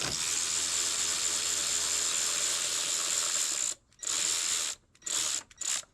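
Quarter-inch drive hand ratchet clicking rapidly as it runs out one of the bolts holding a throttle body: one long run of about three and a half seconds, then three short runs near the end.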